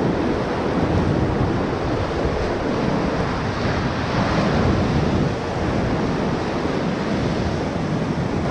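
Whitewater of a river rapid rushing loudly and steadily around a raft running it.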